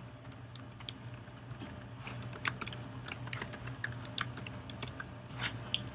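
Typing on a computer keyboard: quick, irregular key clicks as text is entered into a field.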